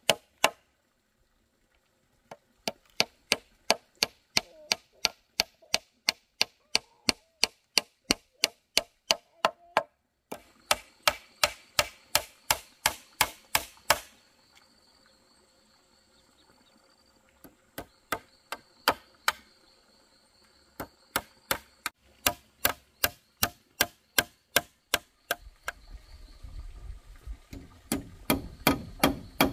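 Hammer driving nails into wooden planks: quick, even strikes about three a second, in runs broken by short pauses.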